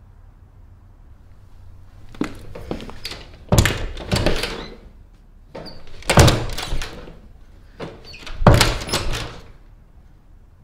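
Closet door banging three times, about two and a half seconds apart, each bang with a short rattle after it, with a few lighter knocks before the first.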